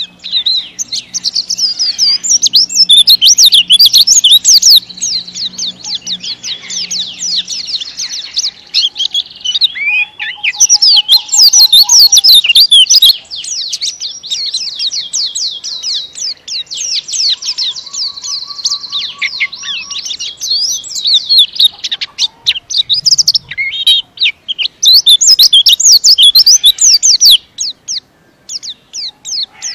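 Caged white-eye (pleci) in full song: a long, fast, tightly packed stream of high twittering notes that runs on with only a few brief pauses.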